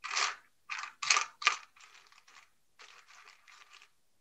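A quick series of short rustling, scraping strokes from craft supplies being handled, four louder ones in the first second and a half, then softer ones.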